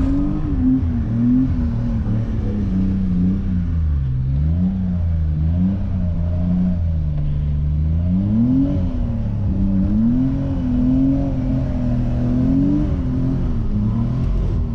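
BMW E28's engine revving up and down as the car is driven hard, heard from inside the cabin. The revs climb sharply at the start, dip twice, climb again a little past halfway and fall off near the end.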